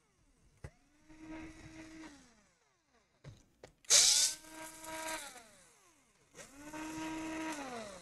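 Electric screwdriver running in three short bursts, each spinning up and winding down, backing out a laptop's case screws. Sharp clicks fall between the bursts.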